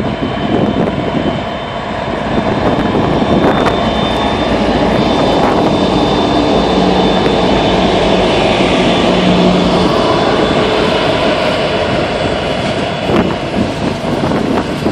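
Canadian Pacific and Union Pacific SD90MAC diesel locomotives passing close by under power: a loud steady engine drone with a thin high whine over it.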